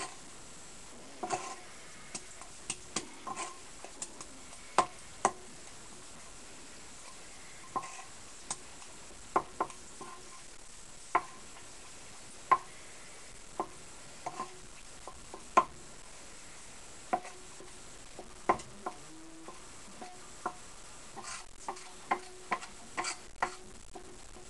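Wooden butter paddles (Scotch hands) patting and knocking against a mound of freshly churned butter and the board beneath it as the butter is shaped: irregular sharp wooden taps, sometimes in quick pairs, with short pauses between.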